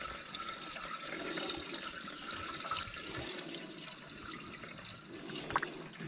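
Water pouring steadily from a plastic jerry can into the priming port of a petrol firefighting pump's casing, filling the pump with water to prime it.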